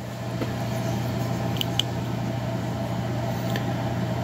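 Steady motor drone with a constant low hum, coming up over the first second and then holding even, with a couple of faint ticks in the middle.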